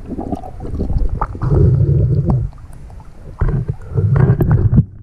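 Muffled water gurgling and sloshing against an underwater camera housing as a spearfisher brings a speared fish up to the surface, in two loud low surges with scattered clicks.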